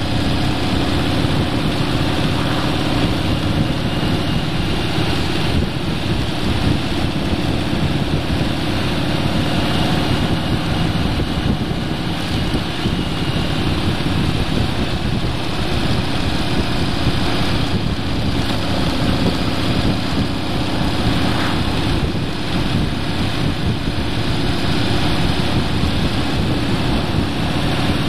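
Road vehicle driving steadily, with wind rushing over the microphone and the engine humming underneath.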